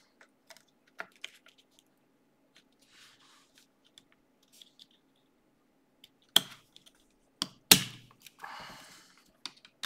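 Hands reseating a laptop-style RAM stick in the memory slot of a NUC mini PC: scattered small plastic clicks and light handling rustles, with two sharp loud clicks about six and a half and nearly eight seconds in.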